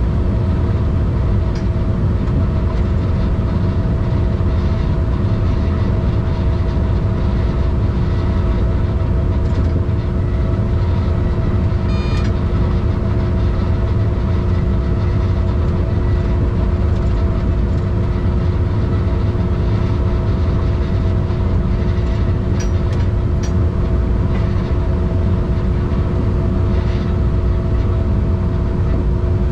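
Steady running noise of a moving road vehicle: a low tyre-and-engine rumble with a constant hum, with a brief high tone about twelve seconds in.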